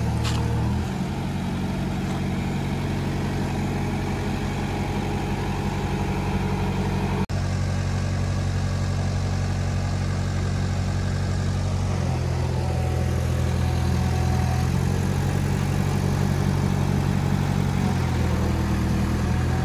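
A motor vehicle's engine running steadily, its pitch stepping up or down a few times as the engine speed changes, with a momentary break in the sound about seven seconds in.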